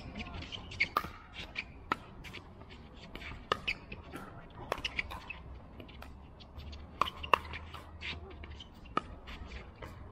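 Pickleball doubles rally: paddles striking the hollow plastic ball and the ball bouncing on the hard court, a string of sharp pocks at uneven spacing, about a dozen in all, the loudest about seven seconds in.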